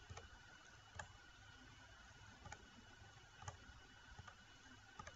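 Faint computer mouse clicks, a few scattered single clicks over near silence.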